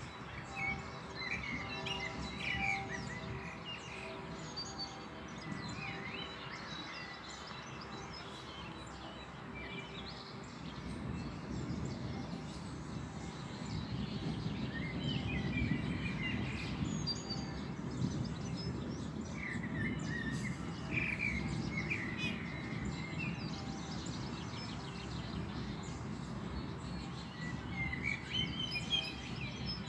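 Songbirds chirping in short scattered phrases over a low, distant rumble of thunder that swells through the middle.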